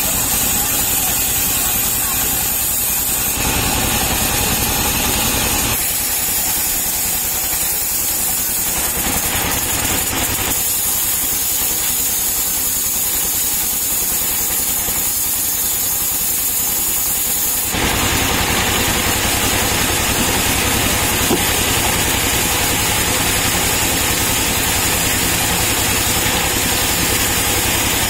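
Band sawmill running and cutting a palm log lengthwise: a steady mechanical drone with a hissing top, whose tone changes abruptly a few times.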